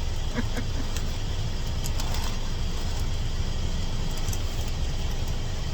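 Steady low rumble of a bus engine idling, heard from inside the bus's cabin.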